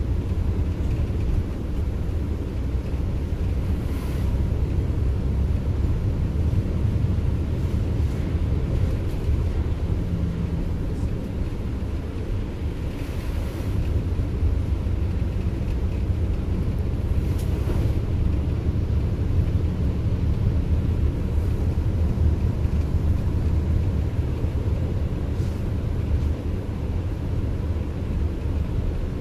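Intercity coach bus on the move: a steady low rumble of engine and road noise with wind buffeting, and a few faint ticks.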